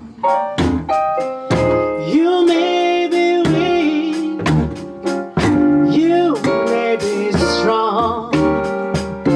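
A song sung with piano accompaniment: a voice holding wavering sung notes over struck piano chords.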